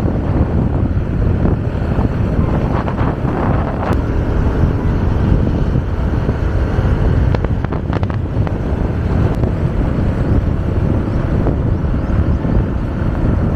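Wind buffeting the microphone of a moving motorcycle, mixed with the motorcycle's running and road noise: a loud, steady low rumble.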